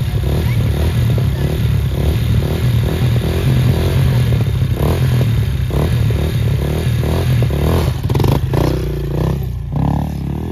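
Honda CRF four-stroke dirt bike engine running, with revs rising and falling near the end.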